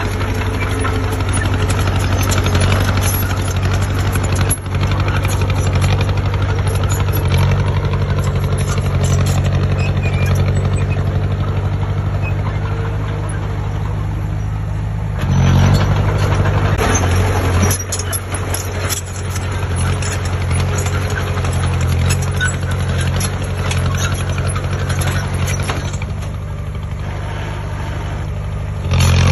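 Heavy diesel engine of a construction machine running steadily, getting louder for about two seconds near the middle and again at the very end.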